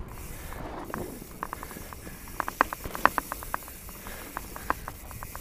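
Mountain bike rolling down a dirt and gravel trail: steady tyre hiss over the ground, with scattered sharp clicks and rattles from the bike over the rough surface that grow busier after the first second or so.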